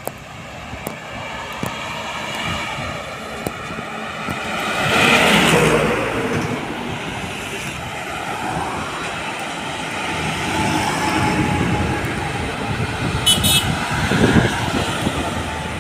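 Road traffic passing close by: a vehicle's whine climbs to a peak about five seconds in and falls away as it goes past. Cars and diesel trucks follow, and a truck engine grows louder and rougher near the end.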